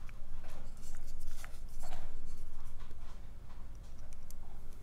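Small metallic clicks, ticks and scraping as a steel tool works at a small brass lock cylinder.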